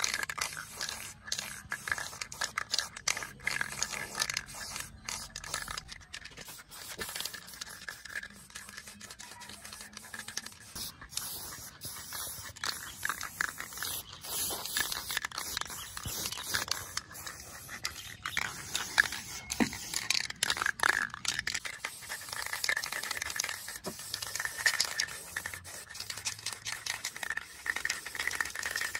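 Aerosol spray-paint can hissing in repeated short bursts as black paint goes onto a television's plastic cabinet.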